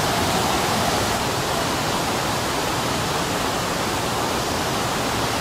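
A large tiered waterfall running high with muddy floodwater: a steady, even rush of falling water.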